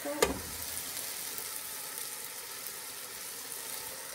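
Cabbage stir-fry sizzling steadily in a pan under a glass lid, with fine crackles throughout. A single clink comes just after the start as the lid settles onto the pan.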